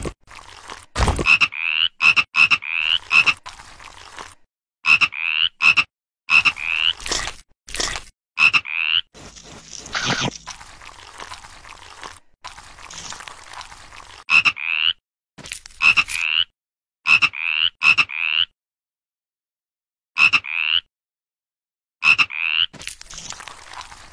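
Frog croaking: short calls that rise in pitch, in quick runs of two to four, repeated again and again. A couple of sharp knocks come in between.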